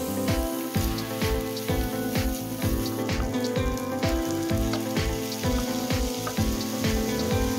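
Background instrumental music with a steady beat, over sliced onions sizzling in oil in a frying pan.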